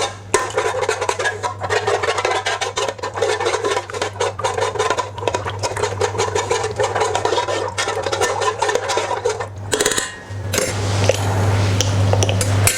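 A utensil stirring a runny sauce of soy, oyster sauce and honey, with rapid clinks and scrapes against the container; the stirring stops about ten seconds in.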